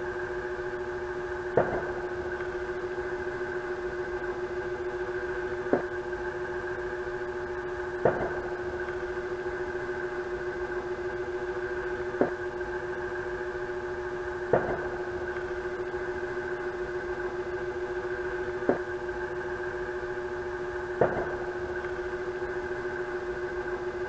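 Hampton Bay Pilot II ceiling fan's counter-rotating motors running on high with no blades fitted: a steady electric hum, with a sharp click every two to four seconds.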